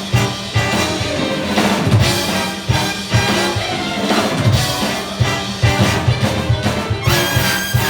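Big band playing loud and busy, with brass over a driving drum kit. About seven seconds in, the drumming thins out and the band moves onto long held notes.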